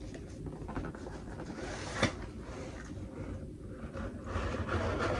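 Cardboard mailer box being opened by hand: rustling and scraping of the lid and flaps, with one sharp snap about two seconds in and louder rustling near the end as the lid comes up.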